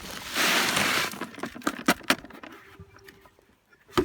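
Concrete-mix aggregate being handled: a gritty rushing noise lasting about a second, then scattered light clicks and knocks, and one sharp knock near the end.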